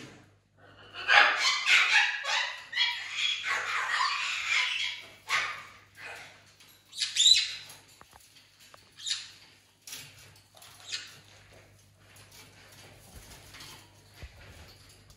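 Pet parrots squawking: a long, harsh run of loud screeching for several seconds, then a few shorter, sharp squawks.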